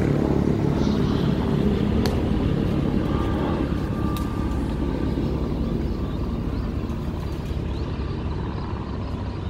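Military helicopter's rotor and engine noise: a steady low rumble that slowly gets quieter.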